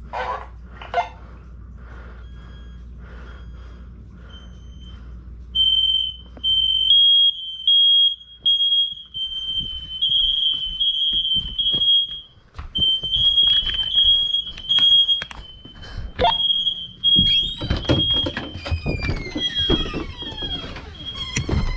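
Interconnected hardwired Firex i4618AC smoke alarms sounding in test mode: a shrill high-pitched beep repeating in quick pulses. It is faint for the first few seconds and loud from about five seconds in. Near the end, a series of falling tones overlaps the beeping.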